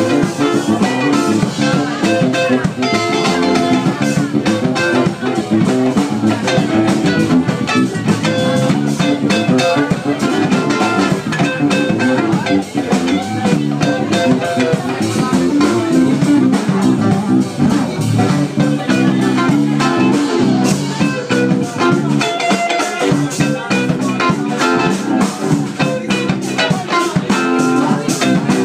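Live band playing, with guitars.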